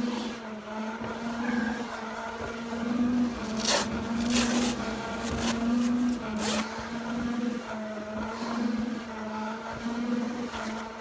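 Heavy breathing through a firefighter's face mask during a stair climb, with a few loud, hissing breaths near the middle, over a steady machine hum that swells about once a second.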